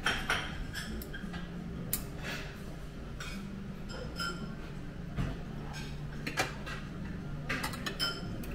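Stainless-steel serving tongs clicking and clinking against porcelain platters and a plate: a scattered string of sharp metallic clinks, some with a short ring, over a low steady hum.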